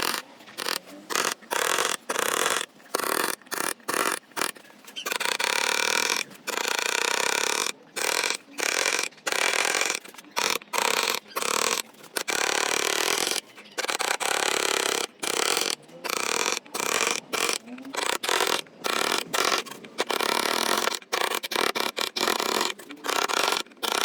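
A power saw cutting wood: a rough, rasping noise in many short bursts of a fraction of a second to about two seconds, each starting and stopping abruptly.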